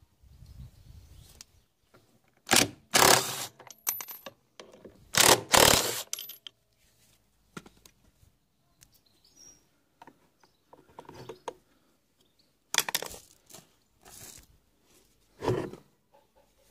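Metal clinking and clattering of a 10 mm socket and bolts on a washing machine's drive-motor mounting: several short bursts, the loudest around three and five seconds in, with a few more near the end.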